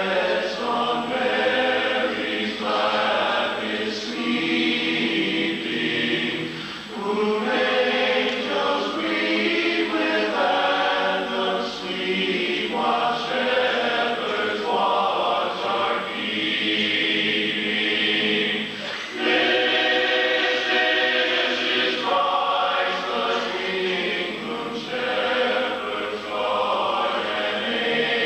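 Men's barbershop chorus singing a traditional Christmas song unaccompanied in close harmony, in long sustained phrases with brief breaks between them.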